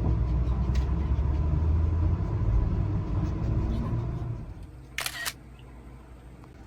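Low rumble of a vehicle running that dies away about four and a half seconds in, leaving a faint steady hum, then a single short sharp click-like burst.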